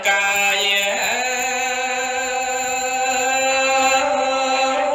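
Khmer smot, chanted Buddhist verse: a single voice sings one long held note, stepping up slightly in pitch about a second in and then holding steady almost to the end.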